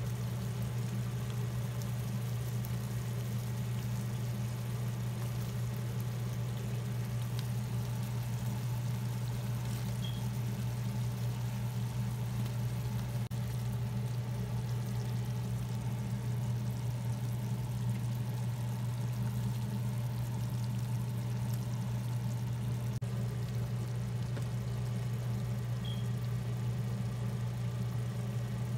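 A steady low hum, like a fan or motor, holding one level throughout, with no distinct sounds rising above it.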